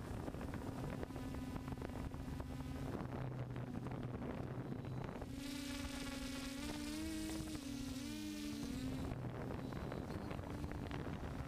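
DJI F550 hexcopter's motors and propellers buzzing steadily, heard from the camera on the airframe. About halfway through, the motor pitch wavers up and down for a few seconds as the motors change speed, then settles again.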